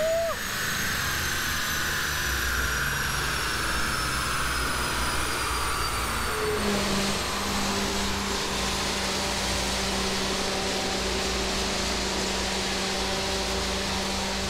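LS V8-swapped Nissan 350Z on a chassis dyno around its final pull. A high whine falls slowly over the first six seconds, as the rollers and driveline coast down, over steady loud machine noise. A steady low hum comes in about six and a half seconds in.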